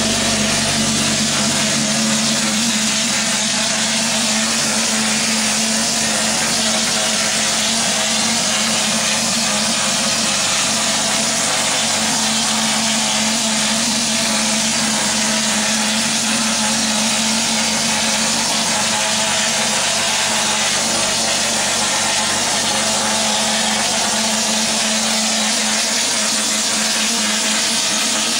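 Spray foam insulation gun hissing steadily as foam is sprayed onto a brick wall, over a steady low hum.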